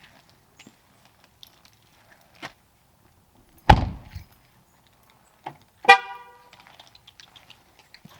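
A car door shuts with a heavy thump, and about two seconds later the car's horn gives one short chirp, the signal of the car being locked.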